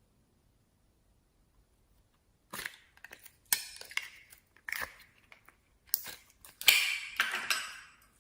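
Slime being squeezed and pressed by hand, giving irregular bursts of crackling, crunching and clicking after a couple of seconds of near silence.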